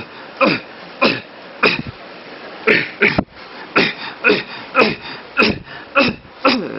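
A man fake-coughing over and over, acted and exaggerated, about two coughs a second. Each cough has a voiced tone that falls in pitch, and there is a short pause about two seconds in.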